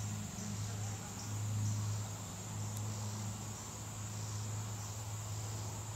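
Steady high-pitched insect chorus, like summer crickets trilling in grass, over a louder low steady hum.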